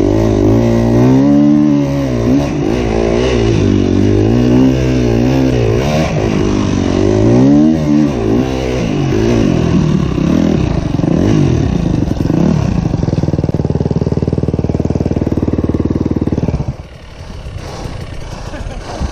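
KTM 250 dirt bike engine close up, revving up and down over and over as the bike accelerates and backs off along a sand track. About 17 seconds in, the engine sound drops away sharply to a much quieter engine sound.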